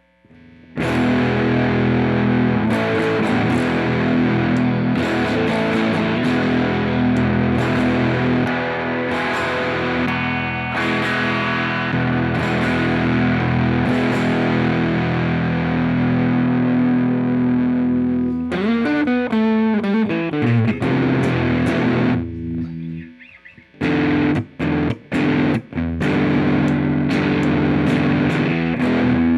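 Squier Cyclone electric guitar with Josephina Fat 60s single-coil pickups, played through a Hotcake overdrive pedal: distorted chords ringing out. It moves to a faster single-note run, then to short choppy stabs near the end. A low hum stays under the gaps, which the player puts down to a missing second ground to the body.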